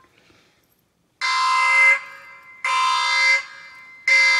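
Alarm-buzzer sound effect, like a ship's battle-stations klaxon, played by a smart speaker as the game's enemy-submarine alert. It gives three steady blasts of about 0.7 s each, the third starting near the end.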